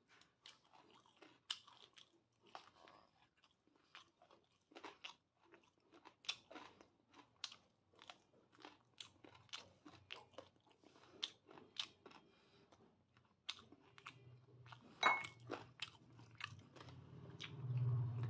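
Close-range chewing of food, with a steady run of small crunches from biting and chewing. About three-quarters of the way through comes one sharper crack. Near the end a louder low sound builds as he drinks from a ceramic bowl.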